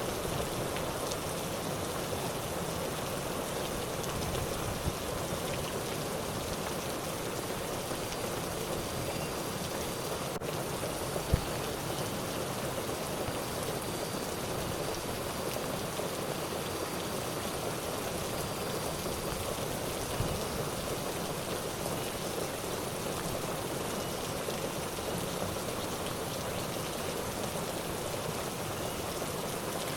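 Steady rain falling, an even hiss, with a sharp click a little past ten seconds in and a short thump a second later.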